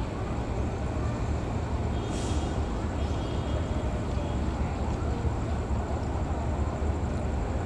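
A diesel locomotive hauling a passenger train approaches, its engine running with a steady low rumble, and a brief hiss about two seconds in.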